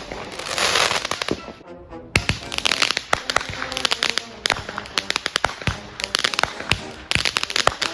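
Consumer fireworks going off: a sharp bang and a short hissing burst, then a long run of rapid crackles and pops.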